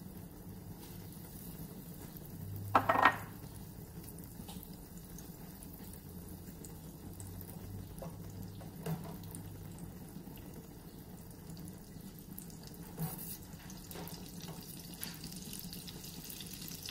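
Butter melting in hot olive oil in a non-stick frying pan: a soft sizzle that grows as the fat heats, with a silicone spatula pushing the butter about in small taps. About three seconds in there is a brief, louder squeak.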